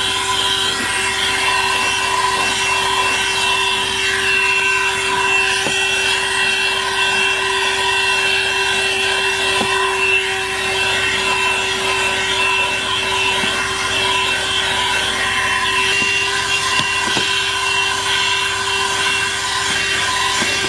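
ThisWorx 12-volt corded car vacuum, with a 106 W motor, running steadily: a constant motor whine over a rush of air through the nozzle, with a few faint knocks as the nozzle touches the car's interior.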